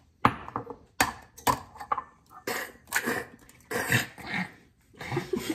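People imitating the sound of an egg cracking with their mouths: a run of sharp clicks and pops, then short throaty, coughing noises.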